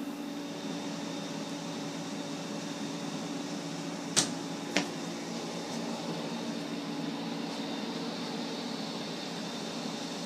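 Steady hum of a room air-conditioning unit running. Two sharp clicks about half a second apart come a little past four seconds in.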